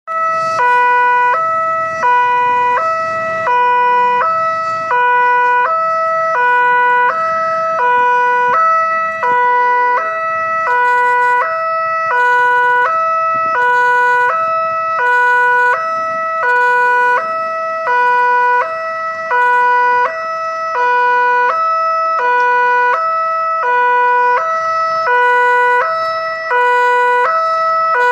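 Railway level-crossing electronic alarm sounding its warning of an approaching train. It is a loud two-tone signal that alternates steadily between a lower and a higher note, swapping about every three-quarters of a second.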